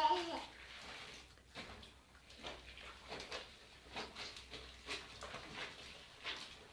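Clothes being hand-washed in a basin: irregular soft splashes, squelches and rubbing of wet fabric. A short, wavering pitched call, like an animal's bleat, is heard at the very start.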